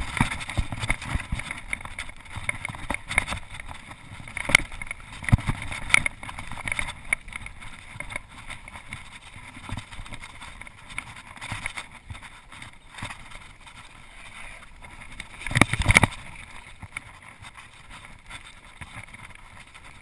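Mountain bike rattling and knocking over a rough dirt downhill trail, picked up by a chest-mounted action camera, with frequent sharp knocks from the frame and bars over bumps. A burst of hard knocks comes about three-quarters of the way through, after which the riding sounds smoother.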